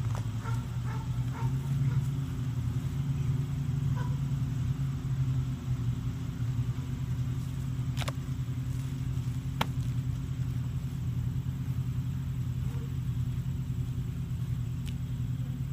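Steady drone of a lawn mower's small engine running, with two sharp clicks a second and a half apart past the middle.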